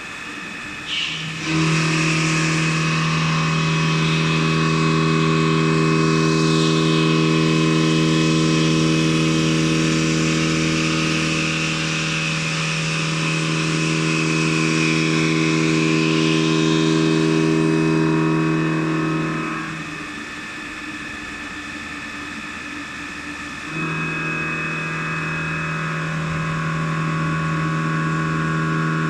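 HAAS VF-8/40 vertical CNC machining center milling: a steady pitched hum with a hiss over it. The hum cuts out about 20 seconds in and starts again about four seconds later.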